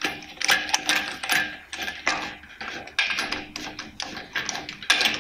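Metal clicking and clinking, several irregular clicks a second, as a steel sleeve nut is spun onto a wheel stud with a hand tool against a polished aluminium truck wheel.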